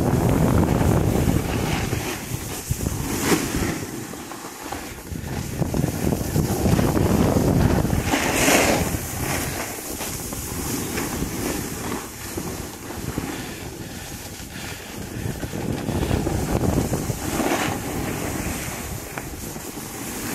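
Wind rushing over the microphone of a camera moving down a ski slope, swelling and fading in uneven gusts, with a few sharper hissing surges of snow scraping.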